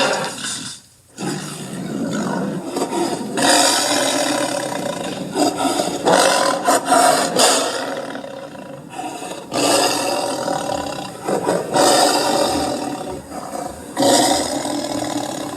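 Grizzly bear roar sound effects: a string of loud, rough roars one after another, each starting sharply and tailing off, with short breaks between them.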